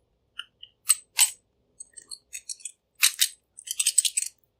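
Light metallic clicking and clinking. Two sharp clicks come about a second in, then a quicker run of bright, ringing clinks about three to four seconds in.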